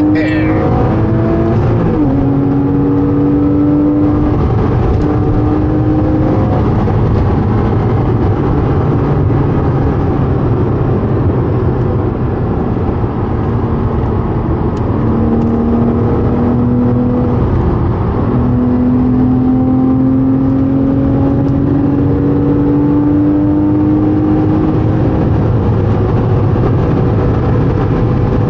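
Porsche 987.2 Cayman S's 3.4-litre flat-six engine accelerating through the gears at speed. The engine note rises steadily and drops back at each upshift, over a steady rushing noise.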